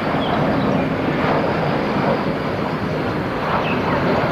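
Airbus A320 jet airliner on landing approach: a steady, loud rush of jet engine noise.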